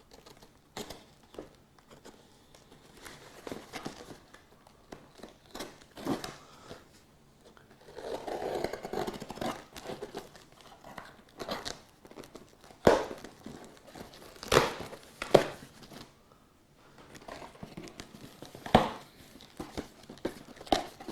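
Packaging being handled and torn open by hand: crinkling and tearing of wrapping, with scattered clicks and a few sharp knocks as the webcam's box comes free.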